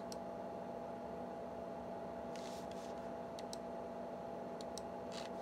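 Steady low hum of a running computer's fan, with a few faint, sharp mouse-button clicks, some in quick pairs.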